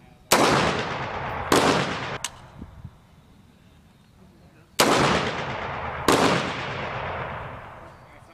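An M16 rifle is fired in single shots: two shots about a second apart, a pause of a couple of seconds, then two more. Each shot rings out and fades over about a second.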